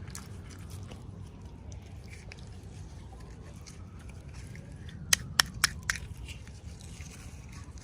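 Hands handling small packaging: soft rustling with four sharp clicks in quick succession about five seconds in.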